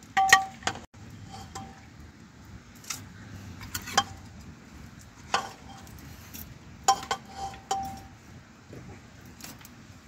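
Dishes and utensils being handled, clinking and knocking several separate times, a few of the clinks ringing briefly.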